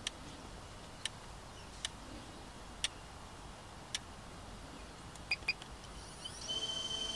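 Faint, sharp single clicks about once a second over a low background hum, then two quick clicks close together. Near the end, high thin tones come in, one of them rising.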